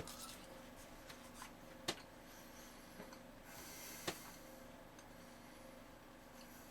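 Faint clicks and ticks over a low steady hum, with two sharper clicks about two and four seconds in.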